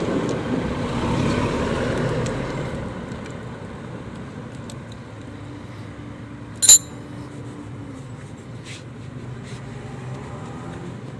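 Outdoor vehicle and traffic noise, loudest for the first few seconds as a vehicle goes by, then settling to a steady low hum. A single sharp metallic clink comes about seven seconds in.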